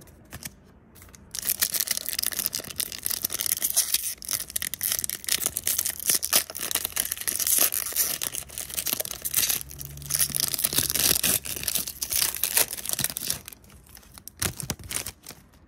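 Foil Yu-Gi-Oh booster pack wrapper being torn open and crinkled by hand: a dense crackling of foil starting about a second in and dying down near the end.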